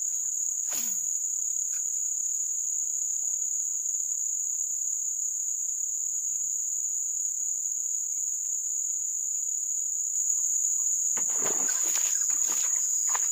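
Insects chirping in a steady high-pitched drone throughout. About eleven seconds in, a stretch of rustling noise joins it.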